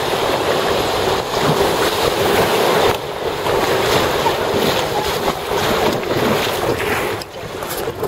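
Rushing whitewater of a river rapid around an inflatable raft, a steady loud hiss of churning water, with wind buffeting the microphone.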